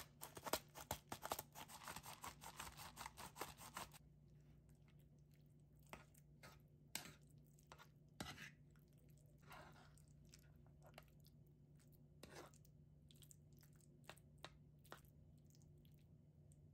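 A hand-twisted spice grinder crackling over a bowl in a dense run of grinding clicks for about four seconds. Then a metal fork stirs and mashes diced tomato and avocado in a wooden bowl, with scattered taps and soft squishes.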